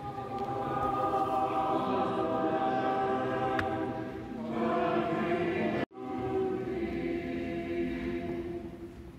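Orthodox church choir singing unaccompanied liturgical chant in long, held chords. The sound cuts out abruptly for a moment about six seconds in, then the singing resumes.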